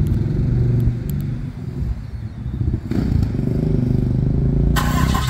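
2016 Ram 2500's 6.7-litre Cummins turbo diesel starting on remote start and running at a low idle.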